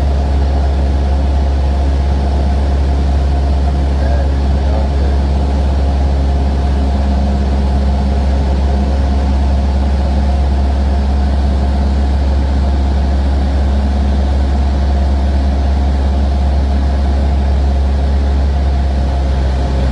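Aircraft engine running steadily, heard from inside the cabin: a loud, even low hum.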